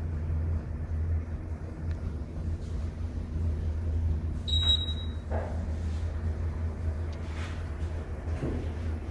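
Steady low hum of an Otis Gen2 elevator in operation, with one short high electronic beep about halfway through.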